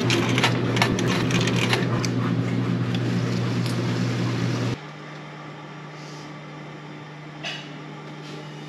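Coin slide of a Maytag commercial washer being pushed in, a quick run of metallic clicks and rattles over a steady machine hum. The hum cuts off abruptly about five seconds in, leaving a fainter steady hum.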